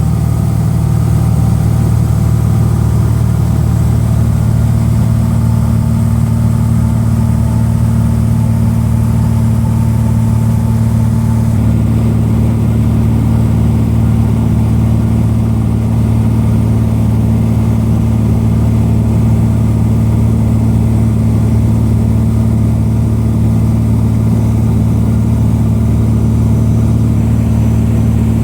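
Cessna 182's single piston engine and propeller running steadily in flight, heard from inside the cabin as a loud, even drone; the tone shifts slightly about twelve seconds in.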